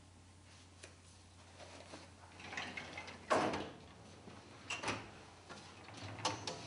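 Drawers of a metal storage cabinet being slid shut and pulled open, with a few knocks and sliding runs. The loudest knock comes about three seconds in.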